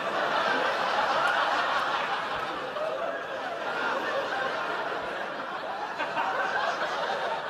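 Sitcom audience laughter: many people laughing together without a break, easing off a little near the end.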